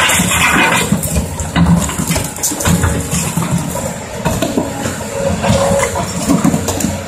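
Caterpillar 320D hydraulic excavator's diesel engine running under load as the bucket lifts and swings through broken concrete slabs. Chunks of concrete knock and clatter against the bucket and each other; it is loudest in the first second.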